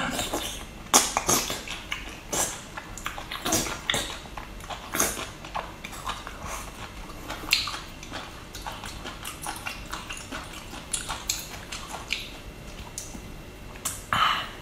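Wet chewing and slurping of wide starch noodles (la pi) in chili oil, close to the microphone: a string of short smacks and sucking clicks, with a louder slurp near the end.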